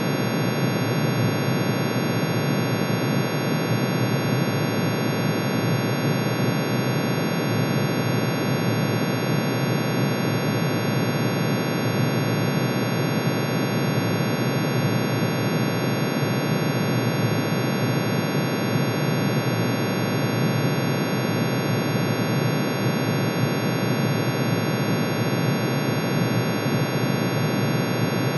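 Synthesized drone made by summing a sine tone for each line of iron's atomic emission spectrum, pitch-shifted into hearing range. It is a steady, unchanging mass of many pitches at once, a hissing roar low down with thin separate tones above it up to a very high whistle.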